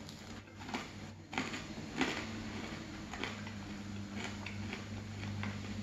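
Close-up mouth sounds of chewing toast soaked in hot chocolate: irregular small crunches and wet clicks, about one every half second to a second. A steady low hum sits underneath.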